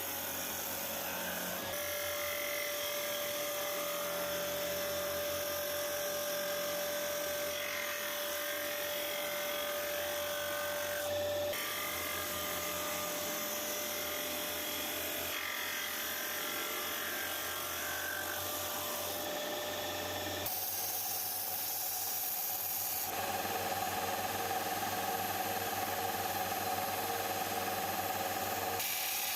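A small electric power tool running steadily, its motor giving a steady whine, in several stretches that change abruptly as the footage is cut.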